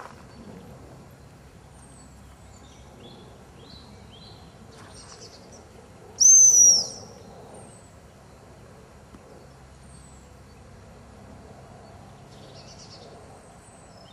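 A dog-training whistle blown once in a single steady, high, shrill blast of just under a second, about six seconds in. Faint small-bird chirps come and go in the background.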